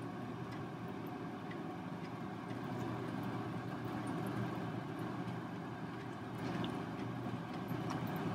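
Steady low background hum, like a fan or motor running, with faint scattered light ticks over it.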